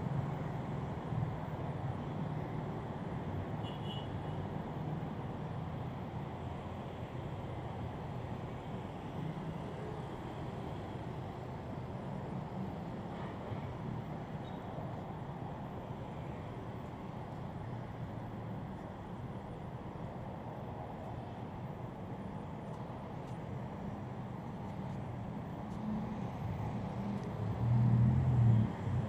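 Steady road traffic from cars and motorcycles on a busy multi-lane avenue, a low continuous rumble. Near the end one vehicle's engine passes close and louder for about a second.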